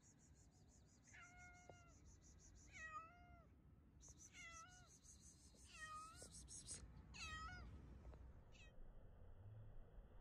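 A cat meowing faintly: five short meows, about one every second and a half.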